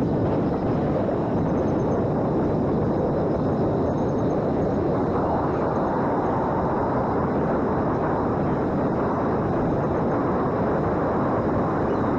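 Small electric radio-control airplane in flight: a steady rush of propeller and airflow noise with a faint high motor whine.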